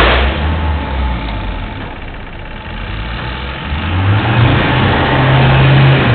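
Car engine running, then accelerating about four seconds in, its pitch climbing and holding higher.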